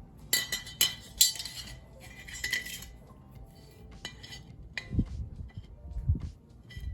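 Metal clinking and clanking as steel pieces or tools are handled and set down. A cluster of sharp, ringing clinks comes in the first couple of seconds, then a few duller knocks later.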